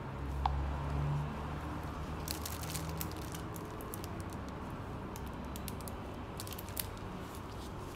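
Low steady hum with faint scattered clicks and crinkles from a gloved hand handling a tablet and its plastic-wrapped keyboard.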